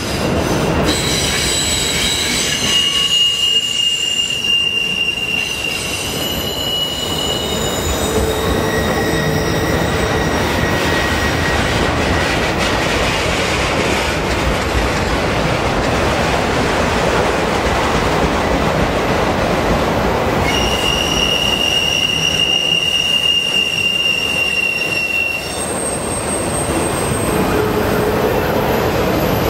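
Freight train of autorack cars rolling past, steel wheels rumbling steadily on the rails. High-pitched wheel squeal comes and goes over it, strongest in the first few seconds and again about two-thirds of the way through.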